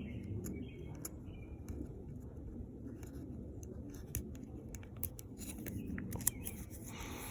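Fingers picking at and peeling the red plastic backing liner off 3M double-sided adhesive tape: a scatter of small clicks and scratches, busier in the second half.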